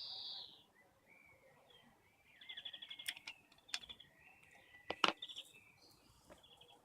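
Birds chirping in short trills, with a few sharp clicks, the loudest about five seconds in.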